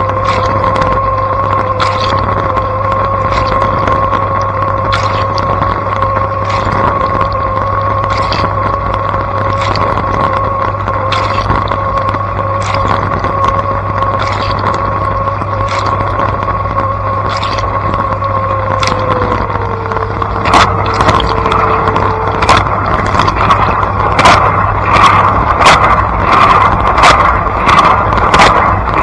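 Blanco dishwasher running a wash cycle: the pump motor hums with a steady whine while water sprays inside with regular ticks. About 19 s in the whine drops in pitch and stops a few seconds later, and the spraying gets louder with faster, regular ticks.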